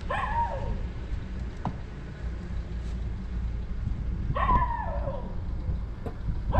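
A dog barks twice, about four seconds apart; each bark is a short cry falling in pitch. A steady low rumble runs underneath.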